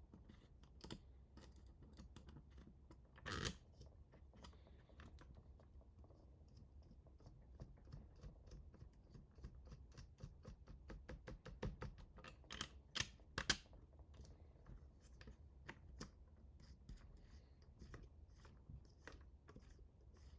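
Faint, irregular clicks and taps of small parts being handled during mechanical assembly, with a louder knock a few seconds in and a run of louder clicks past the middle.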